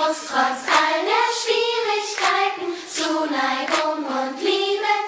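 Children's choir singing with hands clapping about every three quarters of a second, without the song's drums and bass.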